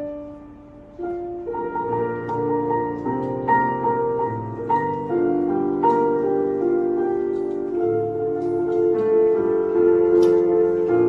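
Piano playing slow chords: a lone note, then steady chordal playing from about a second and a half in.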